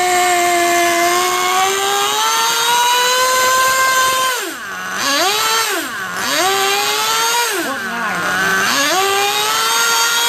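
Small two-stroke nitro engine of a radio-controlled car running at high revs on a stand with its wheels spinning free, its note climbing slowly. Three times, near the middle and again later, the revs drop sharply and come back up while the engine is being tuned by hand.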